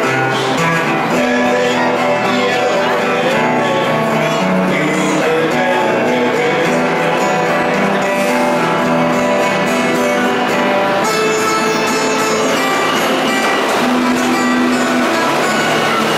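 Two guitars playing a tune together, an acoustic-electric guitar and an electric guitar, plugged into a small amplifier.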